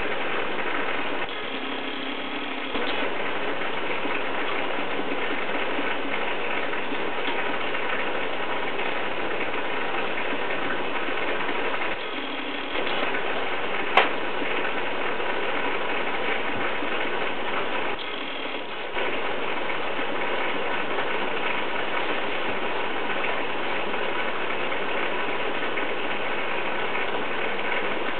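Aquarium air pump running, a steady rattling mechanical buzz that drives the tank's bubble curtain. It dips briefly a few times, and one sharp click comes about halfway through.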